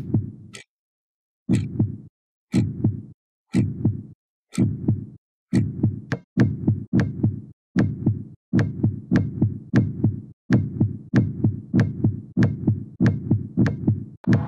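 A basketball being dribbled: a run of low bouncing thuds, each with a sharp slap on top. They come about once a second at first and quicken to about two a second after six seconds in.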